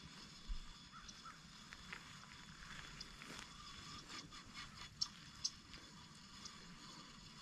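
Quiet outdoor ambience: a faint steady hiss with a few short, sharp ticks, two of them close together about five seconds in.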